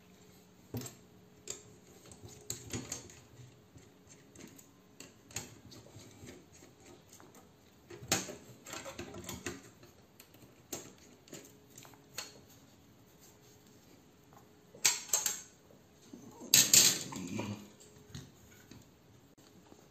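Small precision screwdriver clicking and ticking against the screws and metal parts of a graphics card as its cooler is unscrewed, with scattered light taps. There are a few louder clatters of the card's metal parts being handled, about eight seconds in and twice more near the end.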